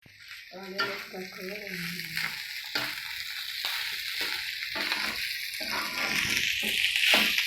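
Nasi goreng (fried rice) sizzling in a hot pan while it is stirred, with a steady frying hiss and a spatula knocking and scraping against the pan every second or two.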